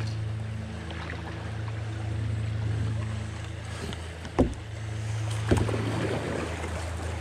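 Canoe being paddled through moving river water: a steady rush of water with paddle splashes, and two sharp knocks against the canoe about four and a half and five and a half seconds in.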